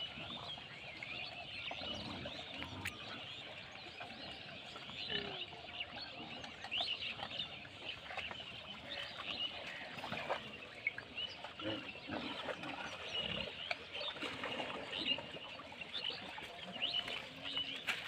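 A herd of pigs grunting and squealing, with short calls scattered irregularly throughout.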